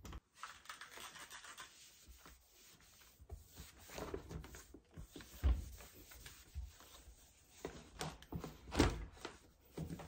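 A cloth wiping and rubbing over a metal dishwasher door in uneven strokes, with two thumps, the louder one near nine seconds.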